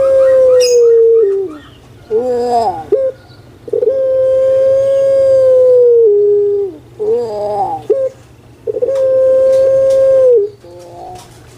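Puter pelung dove, a domestic Barbary dove (Streptopelia risoria), singing its loud song. Three long held coos of about two seconds each, each falling in pitch at its end, alternate with short rolling, wavering notes.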